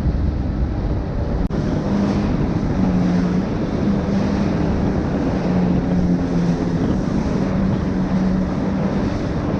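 Kawasaki jet ski engine running at cruising speed with a wavering drone, mixed with wind buffeting the microphone and water rushing past the hull. There is a brief dropout about a second and a half in.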